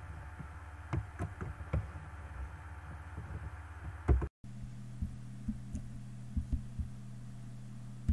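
Scattered soft knocks and clicks over a steady low hum, with a louder knock about four seconds in, followed by a brief dropout and a changed hum as the audio switches.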